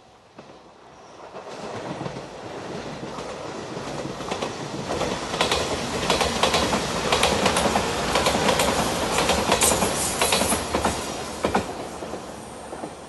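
JR Shikoku Shiokaze limited express, a five-car 8000 series electric train in Anpanman livery, passing close by. Its rumble builds up, wheels clack rapidly over the rail joints as it goes past at its loudest, then the sound eases off.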